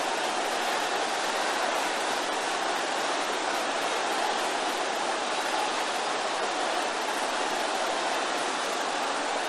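A large congregation praying aloud all at once, many voices blending into a steady, even din with no single voice standing out.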